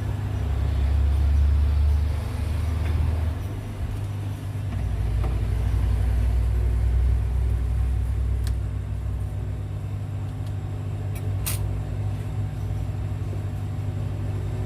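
Hot-air heat gun blowing steadily, with a low hum and rumble, as it melts the solder on a phone's charging port to lift it off the board. The hum dips briefly about four seconds in, and a few sharp clicks come in the second half.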